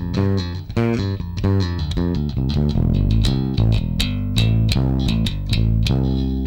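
Music Man StingRay 4 electric bass played through a Markbass Little Mark Tube 800 amp, a steady run of plucked notes with the VPF filter knob turned up. The note attacks grow sharper and brighter in the second half.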